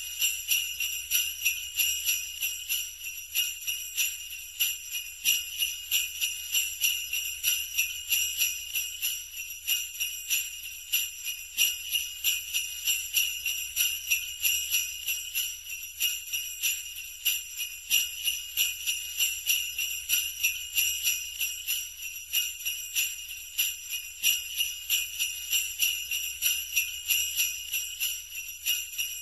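Jingle bells shaken in a steady rhythm, about two or three shakes a second.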